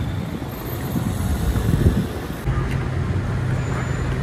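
City road traffic: vehicles driving on a cobblestone street, a rumble that swells to its loudest a little before halfway, followed by a steady low hum.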